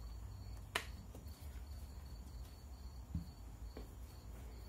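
Handling of a plastic canister of lubricating gun-cleaning wipes as a wipe is pulled out: one sharp click about a second in, then a few faint ticks and a soft knock, over a low steady hum.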